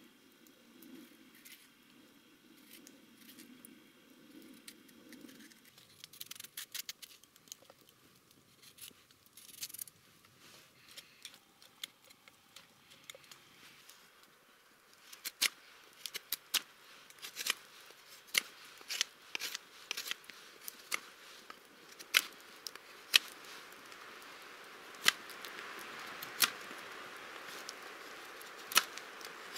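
Kitchen knife cutting and peeling raw potatoes by hand. From about halfway through, each cut gives a sharp, crisp click, roughly one a second, with fainter ticks earlier.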